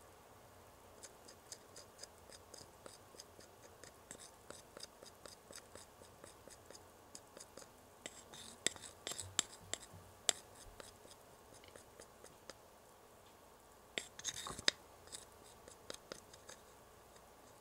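Small plastic spatula scraping sauce off the rim of a plastic bowl into a tiny plastic bottle: a run of faint, quick scrapes and ticks, with a few louder clicks about eight to ten seconds in and again around fourteen seconds.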